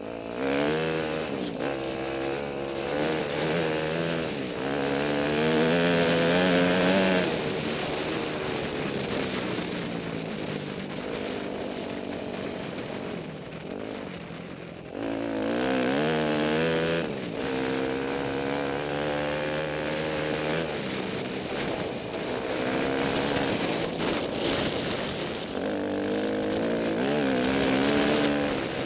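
Dirt bike engine heard from the rider's own machine, its revs climbing and dropping again and again along a dirt trail. The engine is loudest around six seconds in, runs lower and steadier for several seconds, then picks up suddenly about halfway through.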